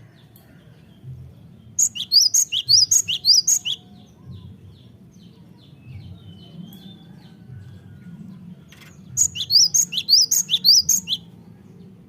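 Cinereous tit (gelatik batuk) singing: two bouts, each about two seconds long, of rapid, high, repeated two-note phrases, with faint chirps between them.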